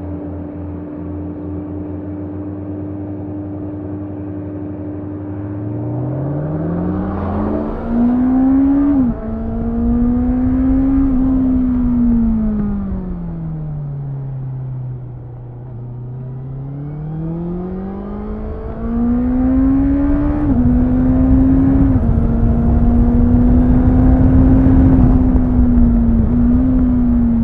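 2018 Honda CBR650F's inline-four engine ridden onboard: running steadily at low revs, then revving up about six seconds in with a gear change near nine seconds. The revs fall away as it slows, then climb again with quick upshifts, while wind noise grows louder toward the end.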